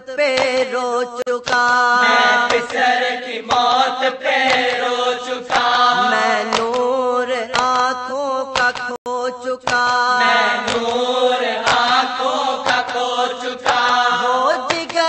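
A voice chanting a Muharram marsiya (mourning elegy) in long melodic phrases, over a steady low drone.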